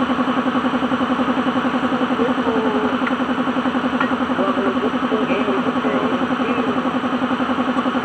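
Suzuki DA16's engine idling steadily, with a fast, even pulse.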